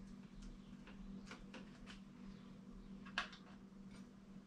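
Faint, scattered clicks and taps of hand tools working on a bicycle crank's bolts, with one sharper click about three seconds in, over a low steady hum.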